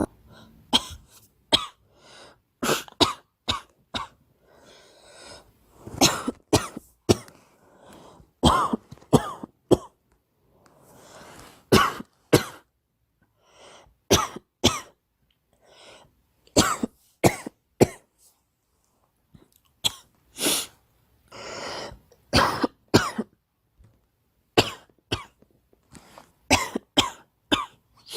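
A girl coughing over and over, in bouts of two to four quick coughs separated by short pauses.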